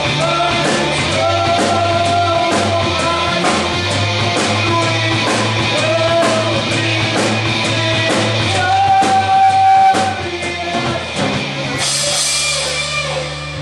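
Rock music with a steady drum beat, guitar and a singer holding long notes; a cymbal crash about twelve seconds in.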